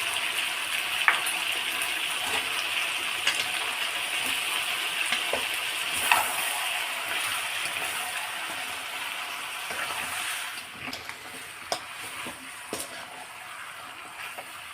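Chicken and spice masala sizzling in oil in a kadai as it is stir-fried, with occasional sharp knocks of the stirring spoon against the pan. The sizzle dies down about ten seconds in.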